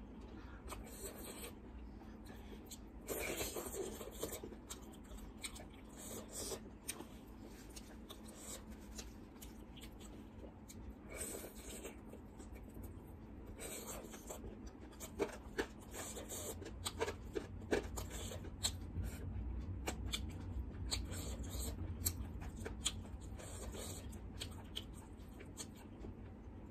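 Close-up eating sounds: fingers mixing rice and crisp fried strands on a metal plate, with chewing and mouth sounds. Small crackles and clicks come throughout, thicker in a few short patches.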